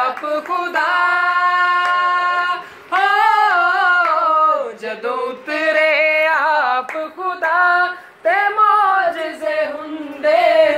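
Unaccompanied solo voice singing a Punjabi Christian devotional song in long, held, ornamented notes, with short breaths between phrases.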